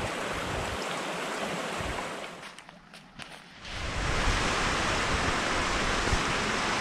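Stream rushing over rocks in small cascades: a steady rushing hiss that drops away for a moment about two and a half seconds in, with a few light clicks, then comes back louder about a second later.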